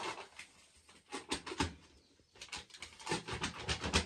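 Paper flour packet crinkling and crackling as it is shaken and emptied into a metal bowl of flour. The crackles come in irregular clusters, densest in the second half.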